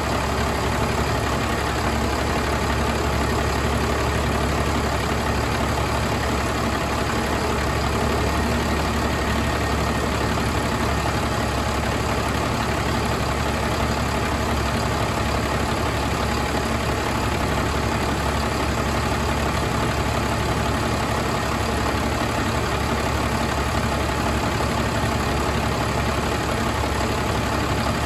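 Paccar PX-6 6.7-litre inline-six diesel engine idling steadily.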